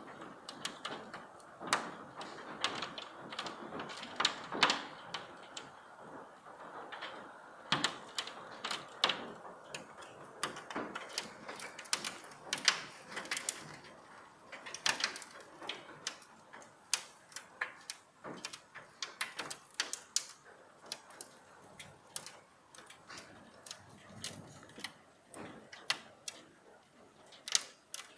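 Hailstones falling hard: a steady hiss of hail and rain with many irregular sharp clicks and knocks as stones strike brick paving and plastic garden chairs.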